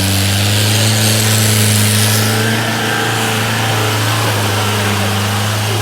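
Off-road vehicle's engine running at a steady pitch while driving, with a steady hiss over the hum. The engine gets a little louder about half a second in.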